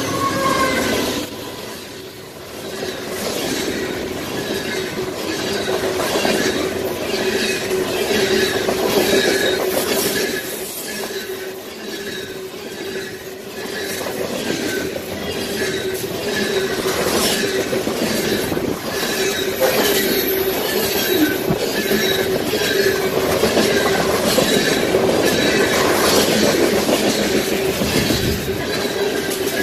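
Union Pacific freight train rolling fast past at close range, a long string of covered hopper cars following the locomotives. The wheels click over the rails in quick repeated strokes, over a steady squealing tone.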